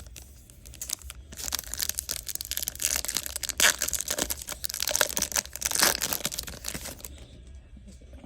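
Crinkly packaging being handled and crumpled, a dense run of small crackles from about a second in until near the end, loudest in the middle.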